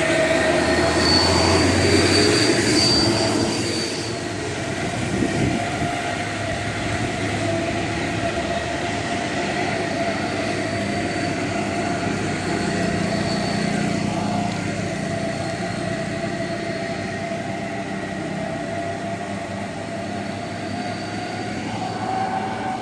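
Heavy vehicle engine running steadily under load, a continuous mid-pitched drone over a low hum, with a high thin whine that comes and goes three times.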